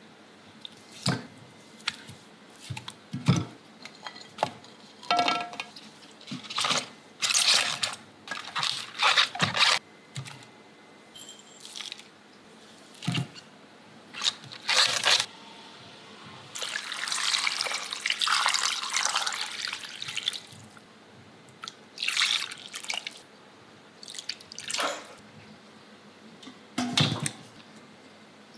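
Food being handled into a cooking pot: short knocks and rustles as a raw pork hock and whole vegetables are set in by hand. About halfway through there are a few seconds of liquid pouring into the pot.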